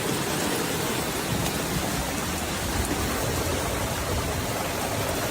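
Steady, even rushing noise with no tone or rhythm in it.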